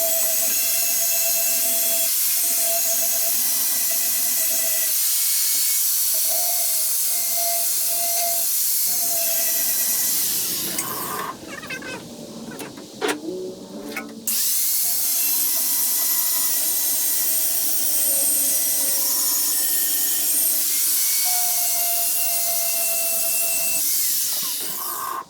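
Power grinder sharpening a steel mower blade clamped in a vise: a steady grinding hiss over the motor's whine. It stops for about three seconds near the middle, with a few clicks and knocks, then grinds again.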